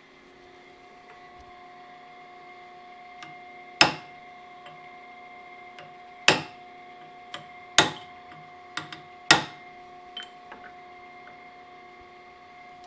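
Hammer striking a blunt-nosed chisel held against a steel camshaft: four sharp ringing metal blows about one and a half to two and a half seconds apart, with a few lighter taps between. The blows peen the shaft's low side, expanding the metal to take the run-out out of a bent camshaft. A steady machine hum sits underneath.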